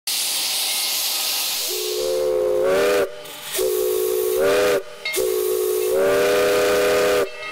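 Steam hissing, then a steam locomotive whistle blowing three long blasts, several tones sounding together, the first starting about two seconds in.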